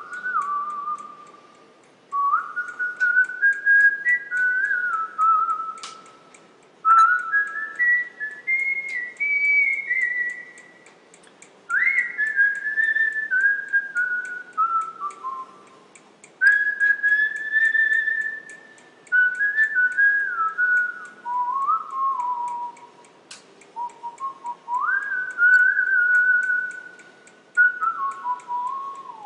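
A person whistling a tune in short phrases, the notes stepping up and down, with pauses between phrases. A few sharp clicks come from small lens parts being handled.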